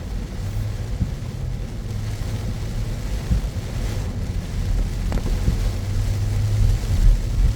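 Car driving on wet city roads in heavy rain: a steady low rumble of engine and tyres with a drone that comes and goes, a light hiss of rain and spray above it, and a few soft thumps.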